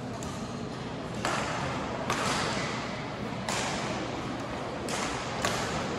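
Badminton rally: about five racket strikes on a shuttlecock, roughly a second apart, starting a little over a second in, over the steady background of a large sports hall.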